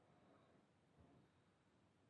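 Near silence: faint background hiss, with one soft low thump about halfway through.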